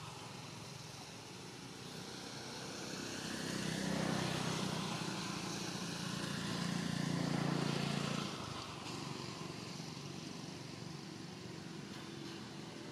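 A motor engine hums, growing louder over a few seconds and then falling away sharply about eight seconds in, over steady outdoor background hiss.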